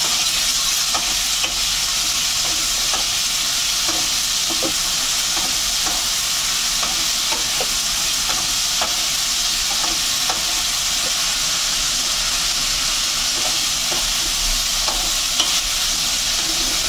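Diced potatoes frying in oil in a pan, a steady sizzling hiss, with light scrapes and taps of a spatula as they are stirred.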